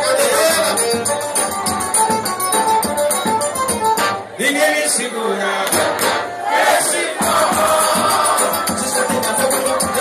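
A forró trio playing live: piano accordion, zabumba bass drum and a triangle's ringing strikes, with a man singing. About four seconds in, the low drum beats drop out for a few seconds while the voice and accordion carry on, then the full band comes back.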